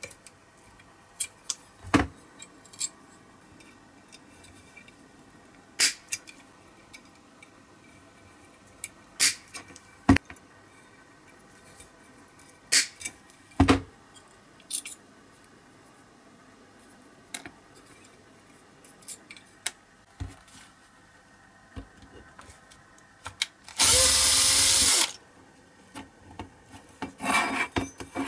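Scattered sharp clicks and taps of small diecast metal parts and side cutters being handled on the bench, then a small power drill runs for about a second near the end, the loudest sound, with more rough drilling noise just after.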